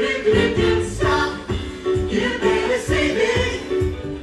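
Live pop vocal group performing: several voices singing together in harmony over amplified backing music with a steady beat.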